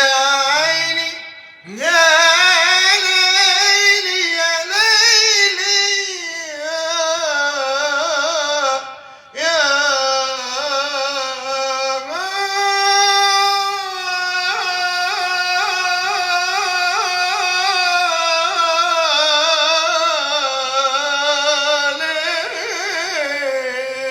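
A male singer sustaining a long, ornamented melismatic vocal line with vibrato, in the Aleppine tarab 'ya leil' improvisation style, breaking off briefly twice for breath.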